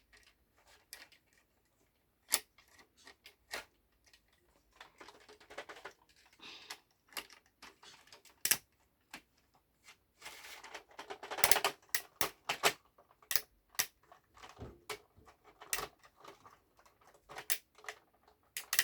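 Hard plastic Playmobil pieces clicking and knocking irregularly as they are handled and fitted together, with spells of rustling as parts are shuffled about.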